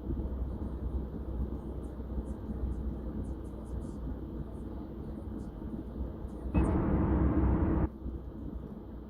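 Steady low rumble of a Kia K5 at highway speed, heard from inside the cabin. About six and a half seconds in, a much louder rush of noise lasts just over a second, then cuts off sharply.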